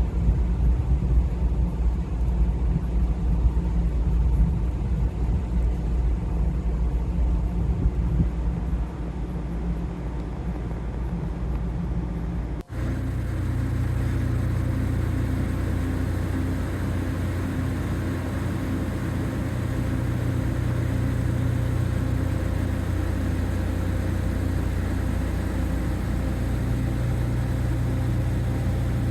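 A steady low mechanical rumble. About thirteen seconds in it cuts out for a moment, then a steadier low hum with several held tones runs on.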